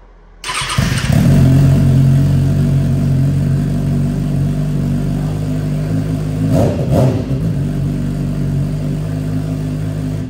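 2021 Kawasaki ZX-6R's inline-four engine breathing through a newly fitted M4 Street Slayer exhaust with its baffle still in: it starts about half a second in and idles steadily. It is blipped twice in quick succession a little past halfway, then shut off at the end.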